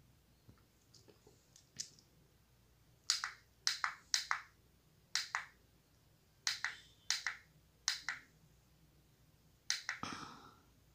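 Push button on a Christmas-light controller box clicking as it is pressed over and over to cycle through the lighting modes: a string of short, sharp clicks, many of them doubled, with a longer rustling scrape of handling about ten seconds in.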